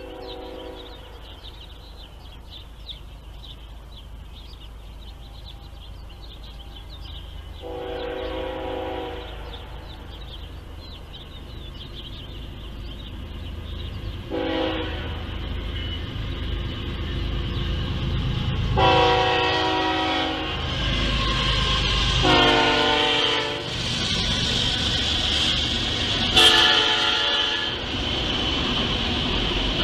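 Freight train approaching and passing a grade crossing, its locomotive horn sounding six times in long and short blasts while the low rumble of the train grows steadily louder. Near the end the rumble of autorack cars rolling by takes over.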